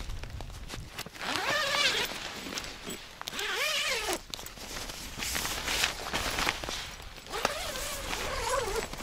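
Zipper on a pop-up cube tent's door being pulled open in three separate strokes, about a second apart from each other and each lasting about a second. Each stroke is a buzzing rasp that rises and falls in pitch as the pull speeds up and slows.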